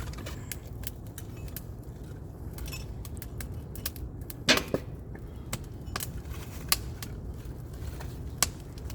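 Wood campfire crackling, with sharp pops and snaps scattered irregularly and a few louder pops about halfway through, near seven seconds in and near the end.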